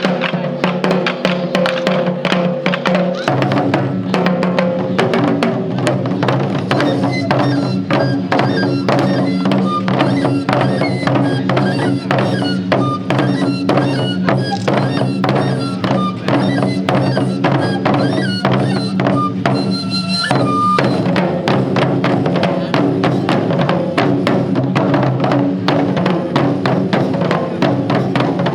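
Japanese taiko ensemble drumming a fast, continuous pattern of strikes over sustained low tones. A high melody of short notes plays over it from about 7 to 21 seconds in.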